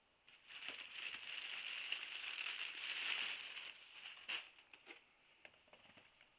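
Crinkling and rustling of packaging being handled for a few seconds, dying down into a scatter of light clicks and taps.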